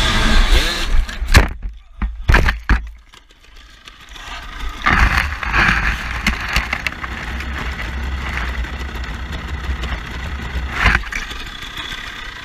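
Dirt bike crash: engine and wind noise, then several hard knocks and impacts about one to three seconds in as the bike and rider go down. Rustling and scraping in dry grass and brush follows.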